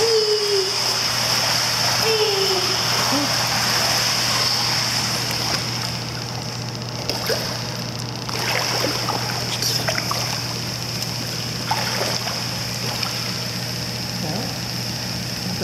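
Pool water sloshing and splashing around a Doberman puppy wading in the shallow end, with a few small splashes from about seven to twelve seconds in, over a steady high hiss. Two short falling voice-like sounds come near the start.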